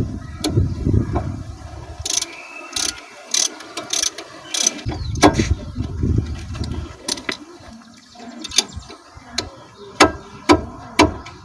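Metal hand tools working on a car's disc brake caliper during a pad change: sharp metallic clicks, with a quick run of about six evenly spaced clicks between two and five seconds in, and low rumbling handling noise at the start and in the middle.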